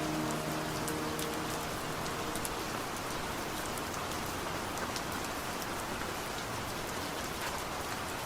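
Steady rain falling, an even hiss with scattered sharp drop ticks. The last held notes of a song fade out in the first couple of seconds.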